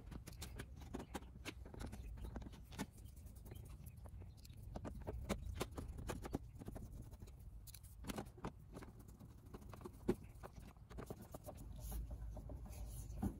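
Scattered light clicks and taps, irregular and spread throughout: small screws being handled and started by hand into an ATV's shift guide.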